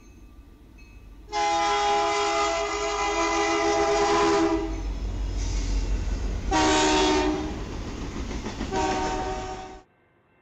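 Locomotive air horn with a chord of several notes, sounding one long blast and then two shorter ones over the low rumble of a train. The sound cuts off abruptly near the end.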